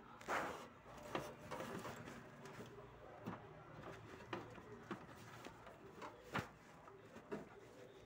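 Scattered faint clicks and taps, about seven of them at uneven intervals, over a quiet background with a faint steady tone.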